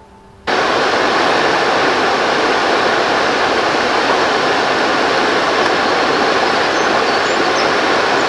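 Steady, loud rushing of riverside ambience, the moving river water and wind on the microphone, cutting in abruptly about half a second in as soft piano music ends.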